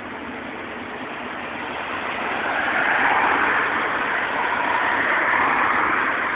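A car driving past, its sound swelling about two seconds in, loudest for a few seconds, then fading near the end.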